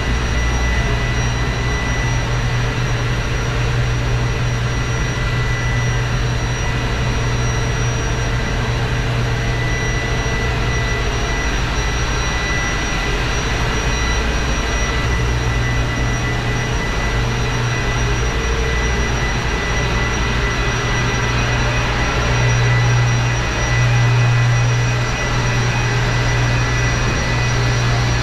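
Loud, steady machinery noise of a cruise ship's engine room: a heavy low hum with several steady high whining tones over it, swelling slightly in loudness near the end.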